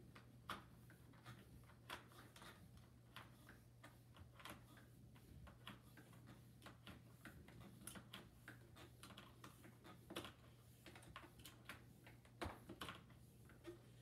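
Faint irregular clicks and taps from hands handling a switched-off upright vacuum cleaner's plastic body and power cord, a couple of strokes a second, over a steady low hum.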